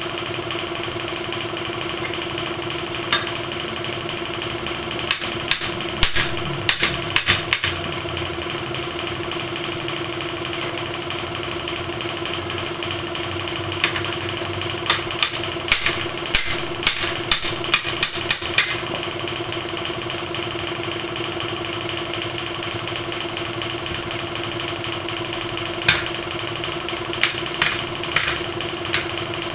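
A machine running with a steady hum. Over it come several clusters of sharp clicks and taps.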